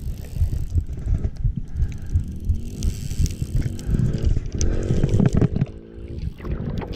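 Wind buffeting the microphone. From about two and a half seconds in, a droning tone rises in pitch and then holds steady.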